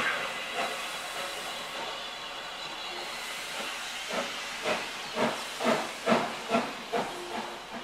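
Steam locomotive pulling away, its steam hissing steadily. About four seconds in, regular exhaust beats join the hiss, coming about twice a second.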